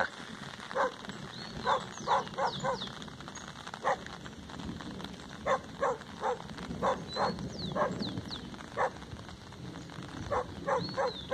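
A dog barking repeatedly, short sharp barks coming in irregular runs of two to four.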